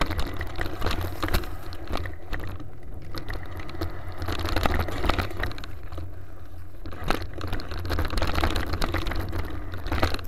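Mountain bike riding fast down a dirt singletrack: tyres running over dirt and roots, with frequent rattles and knocks from the bike, over a steady rumble of wind buffeting the camera microphone.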